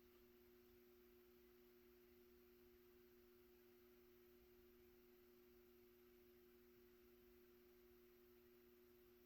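Near silence: a faint, steady hum made of two low tones.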